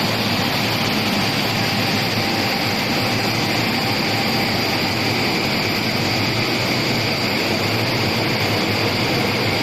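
Glass washing and drying machine running with a steady, even rushing noise.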